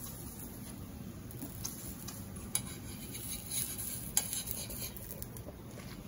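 Steel spoon scraping and tapping against a tawa while spreading ghee over a paratha, with scattered light clicks of metal on metal.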